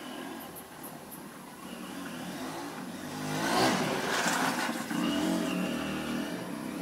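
A motor vehicle's engine passing close by. It grows louder over the first few seconds, is loudest a little past halfway, then runs on more evenly before easing off near the end.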